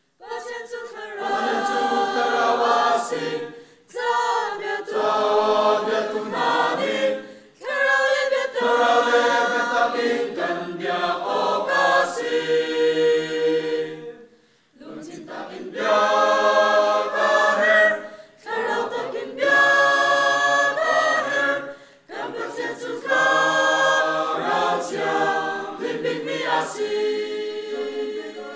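A mixed choir of men and women singing unaccompanied, in phrases with short breaks for breath between them. Near the end the last chord is held and fades away.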